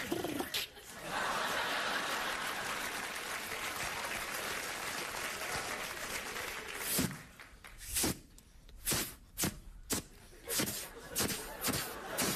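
Studio audience laughing and applauding, followed from about seven seconds in by a run of sharp knocks or clicks, roughly one or two a second.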